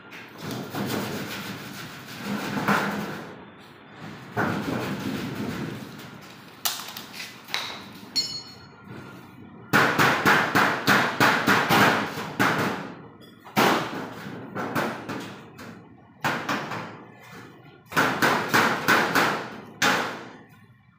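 Rapid runs of sharp metallic taps on a galvanized-iron sheet-metal showcase body, several strikes a second for a few seconds at a time, with scattered quieter knocks between the runs.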